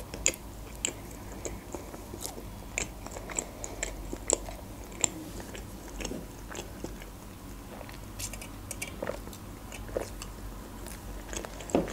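Close-miked chewing of a shawarma wrapped in lavash: irregular wet mouth clicks and smacks, scattered over a low hum.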